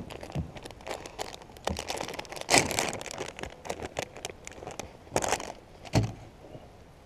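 Plastic zip-top bag of soft-plastic fishing worms crinkling in short crackly bursts as it is handled and opened and a worm is pulled out. A single thump comes about six seconds in.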